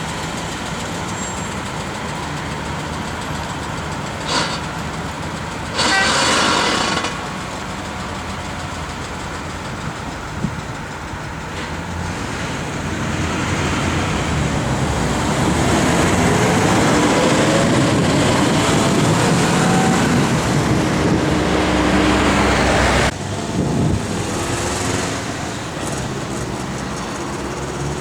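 Road noise of a car driving through city traffic. About six seconds in there is a short louder noise, and from about thirteen seconds in an engine grows louder and rises in pitch as it speeds up, cut off abruptly near twenty-three seconds.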